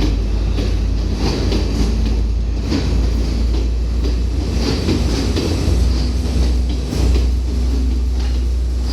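Sri Lanka Railways Class S12 diesel multiple unit running at speed, a steady low rumble with irregular clickety-clack of wheels over rail joints.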